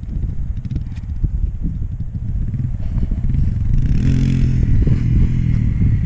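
Small Honda 300 dirt bike engine running in first gear for wheelies, revving up hard about four seconds in and then easing off.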